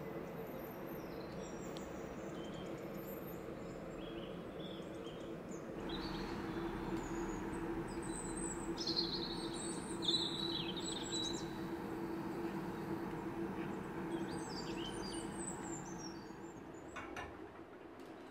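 Small birds chirping and calling off and on over a steady low hum. Near the end come a few sharp clicks as a gas stove burner is lit.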